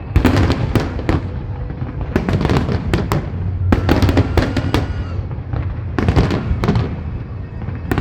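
Fireworks and firecrackers going off in a dense barrage: clusters of sharp cracks and bangs, one after another, over a continuous low rumble.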